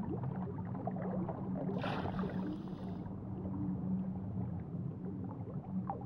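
Underwater ambience on a reef: a steady low hum under constant faint crackling, with a brief hiss about two seconds in.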